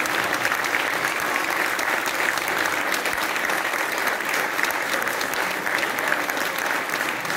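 Audience applauding steadily: dense, even clapping from many hands.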